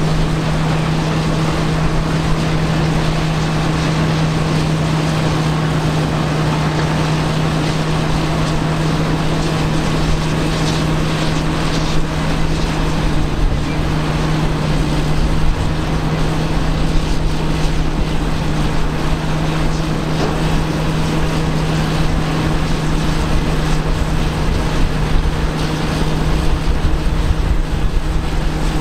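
Caterpillar D8K bulldozer's diesel engine running steadily, a loud constant drone that holds one pitch throughout.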